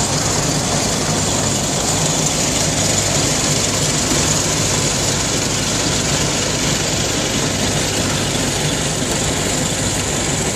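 An old Farmall tractor's engine running steadily under load while driving a pull-type corn picker through the PTO. The picker's machinery runs with it as one continuous, even din.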